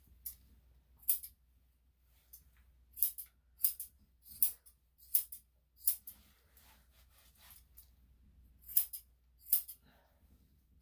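Grooming scissors snipping through dog hair: about nine short, sharp snips at an uneven pace, two close together near the end.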